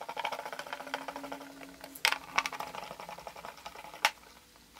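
Hand screwdriver driving a small screw into the case of a MOTU UltraLite audio interface: a run of fast, light ticks as the screw turns, fading out after about three and a half seconds, with a couple of sharper clicks, one about two seconds in and one near the end.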